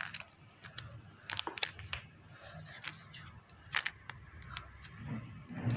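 Small plastic clicks and crackles, a few at irregular moments, as a plastic surprise-candy egg is twisted and pried at by hand; the egg is hard to open.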